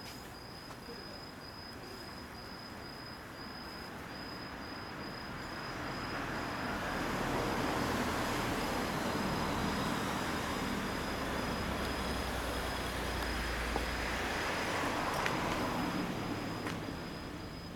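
A road vehicle passing by: its noise swells over several seconds, holds, then fades near the end.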